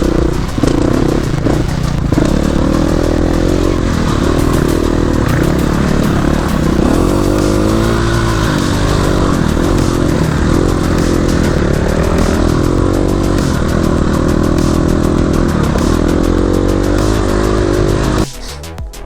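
Dirt bike engine running as it is ridden off-road, the revs rising and falling with the throttle. Near the end it cuts off abruptly to electronic music.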